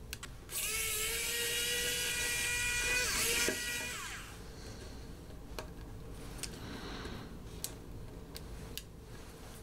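Wowstick electric precision screwdriver's small motor whining steadily for about three seconds while unscrewing a tiny phone screw, its pitch sinking as it stops. After it, scattered faint clicks of small parts being handled.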